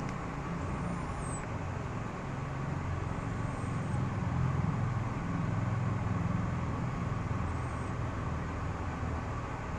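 Steady low rumble of a running vehicle engine, swelling a little in the middle, with a few faint high whistles.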